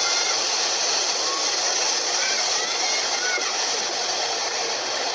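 Passenger train running along the track: a steady, loud rushing noise of wheels on rails.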